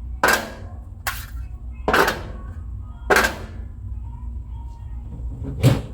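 Metal flavorizer bars of a Weber Genesis gas grill being dropped into place in the grill head. They make five sharp clanks at uneven intervals over a steady low hum.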